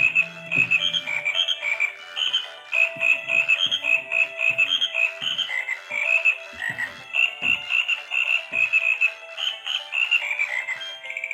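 Repaired toy frog playing its electronic croaking sound through a small speaker: a fast, continuous run of short high chirps that cuts off suddenly near the end.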